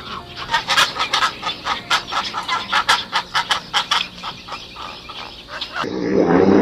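Chickens clucking: a rapid run of short, sharp calls, several a second. Near the end this cuts abruptly to a louder, lower animal sound.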